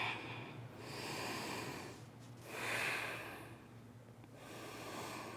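A woman's slow, deep breathing through the nose: three soft breath sounds, the middle one the loudest, as breaths are held and counted in a yoga pose.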